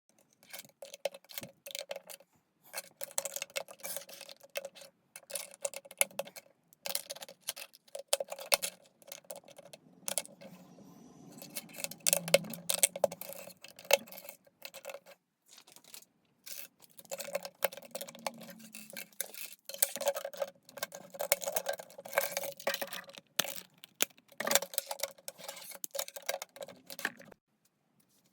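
Plastic LEGO pieces clattering and clicking against each other in quick, irregular runs, as pieces are handled and snapped together during a build.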